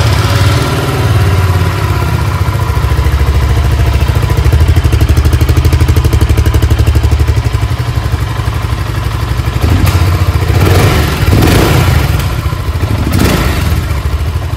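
BSA Gold Star 650's 652 cc liquid-cooled single-cylinder engine idling steadily through its single exhaust, just after being started. It is revved briefly a few times near the end.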